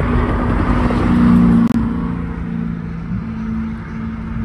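Car driving at highway speed, its engine and tyre noise heard from inside the cabin, a little louder for the first two seconds and then steady.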